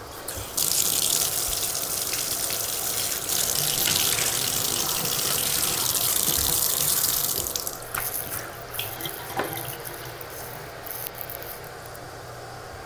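Bathtub faucet running, its stream splashing onto the fiberglass tub floor by the drain. It starts about half a second in and stops after about seven seconds, followed by a few light clicks and drips.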